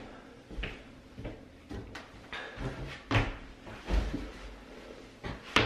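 Scattered knocks and thumps as a man walks up and leans his hands on a wooden tabletop, with a sharp knock near the end.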